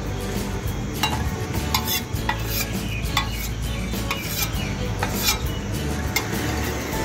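A metal spatula scraping and clacking on a hot flat griddle (tawa) as a masala puff is pressed and turned, in about a dozen irregular sharp strokes. Under it the puff sizzles steadily as it fries on the plate.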